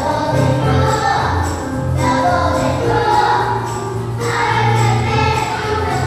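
Music: a group of voices singing over accompaniment with a steady bass line.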